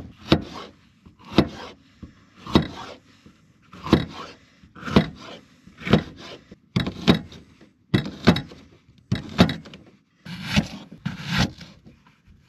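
Knife chopping onion and peppers on a cutting board: slow single strokes, each a sharp knock, about eleven of them at roughly one a second.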